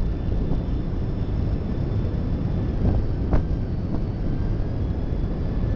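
Freight train rolling slowly around a curve, heard from the caboose's rear platform: a steady low rumble of wheels on rail with a few sharp clicks, the loudest about three and a half seconds in.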